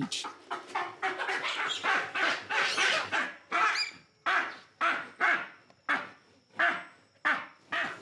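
Adult male baboon screaming in protest while being forced to one end of a wire carrying cage: a string of harsh cries, close together at first, then coming about twice a second.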